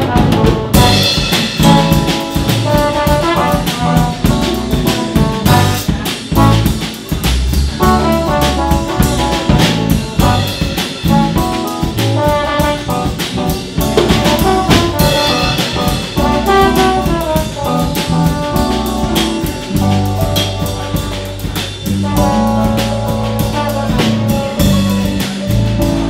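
Live jazz band playing: a trombone carries the melody over a drum kit and electric bass.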